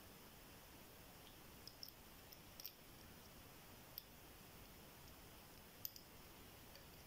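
Faint, sharp metallic clicks from a pick working the pins of a GLK ten-pin euro dimple cylinder lock. The clicks come irregularly, a handful in all, the loudest about six seconds in.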